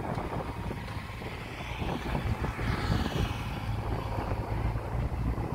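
Caterpillar 307B mini excavator's diesel engine running steadily under load as the machine tracks toward the truck bed, with a brief hiss near the middle.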